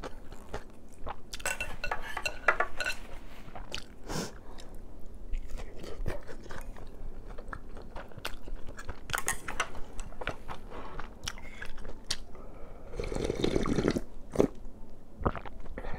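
Close-miked chewing with crisp crunching bites, then a slurp near the end as seolleongtang broth is drunk straight from the bowl.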